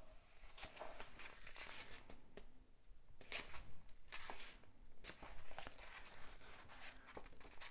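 Pages of a thick paperback book being turned by hand: a string of soft, irregularly spaced paper rustles.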